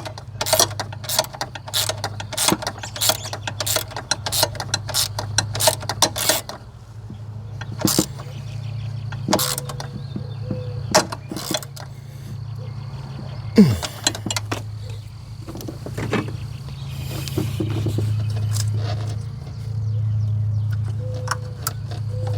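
Ratchet wrench clicking at about two to three clicks a second while a coil-pack bolt is run in, stopping after about six seconds. Scattered metal clicks and clinks of tools follow, over a steady low hum.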